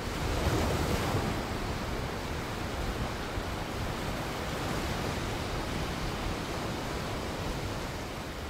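A steady rushing, wind-like noise with no tune or beat, a sound effect laid under an animated smoke logo reveal, easing off slightly near the end.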